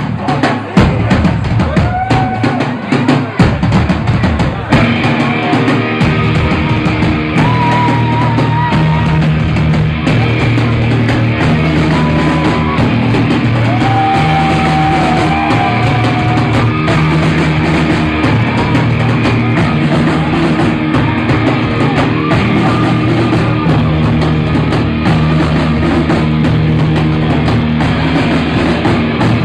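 A live rock band playing loud, recorded from the audience. A sparser opening of drum hits and guitar gives way to the full band coming in at once about five seconds in, which then plays on steadily with held, bending lead notes over the drums and bass.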